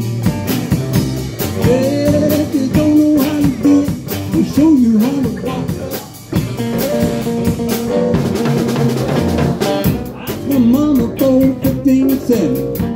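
Live blues-rock band playing an instrumental break between sung verses: saxophone lead line over electric guitar, bass guitar and a drum kit with a steady beat.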